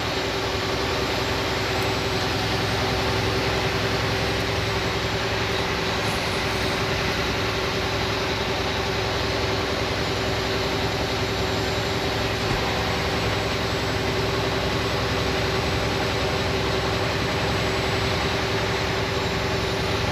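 Steady drone inside a semi truck's cab while cruising: diesel engine hum and tyre and road noise, with a constant tone.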